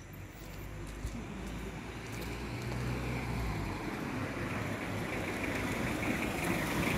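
A car approaching along the road, its engine and tyre noise growing steadily louder.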